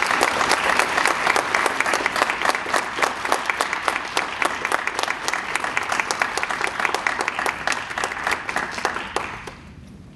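An audience applauding: many hands clapping steadily, fading out about nine and a half seconds in.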